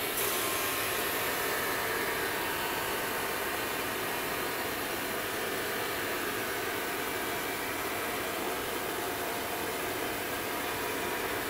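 A steady rushing noise, even and unbroken, with no beat or clear pitch.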